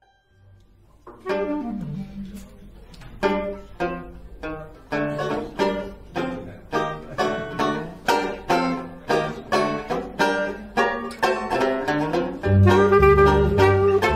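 A banjo strums chords alone in a steady jazz rhythm, about two strokes a second. Near the end, a clarinet comes in with a held note and a double bass joins underneath, and the music gets louder.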